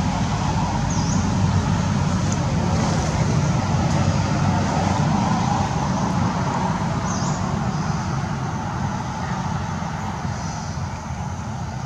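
Steady low rumble of a motor vehicle engine, easing off a little over the last few seconds.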